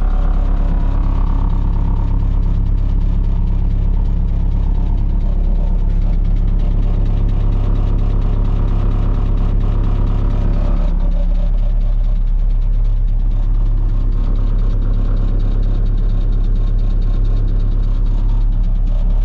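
Bobcat S650 skid steer's diesel engine running steadily. Its note changes slightly about eleven seconds in.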